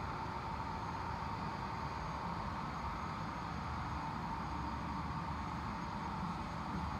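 A steady hum with a hiss, even in level throughout, with no rise and fall of breaths standing out.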